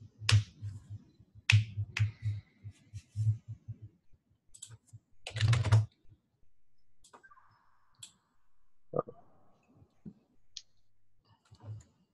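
Computer keyboard typing in short irregular runs of sharp key clicks, with a denser flurry about five and a half seconds in and only scattered clicks after that.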